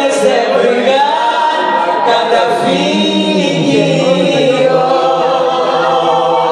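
A man and a woman singing a Greek song together into microphones, live and without instruments, the lower voice holding a long note through the second half.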